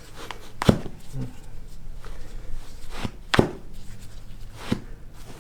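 A few sharp pops of toe and foot joints cavitating under a chiropractic adjustment. The loudest comes a little past three seconds, with others about a second in and near the end.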